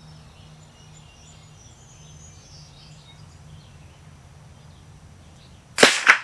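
A single shot from a Henry lever-action .22 LR rifle near the end, with a second sharp crack a fraction of a second after it. Before the shot, faint birdsong and insects over a steady low background hum.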